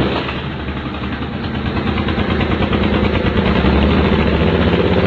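Suzuki Boulevard 1500's V-twin engine running through a Roncar V-Rod Scorpion sport exhaust. It settles from a blip of the throttle into an even, pulsing idle, which grows a little louder towards the end.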